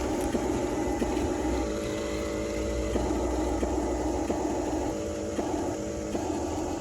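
Small electric motors and gearboxes of a Huina radio-controlled construction model whining in spurts of one to two seconds, starting and stopping as the controls are worked.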